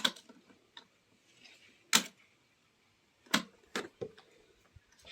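A few sharp, separate clicks, two seconds apart at first and then closer together, and no engine sound, as the scooter is tried and does not start: its battery is not charged.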